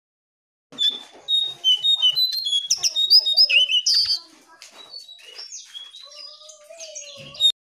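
Jongkangan songbird singing a fast, varied run of chirps and whistles, loud for the first few seconds, then softer, with a lower drawn-out wavering note beneath. It stops abruptly near the end.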